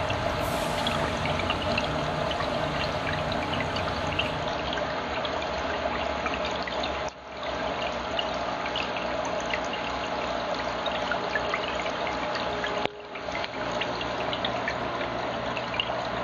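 Aquarium water trickling and splashing steadily with a fine bubbly crackle, briefly dropping away twice, about seven and thirteen seconds in.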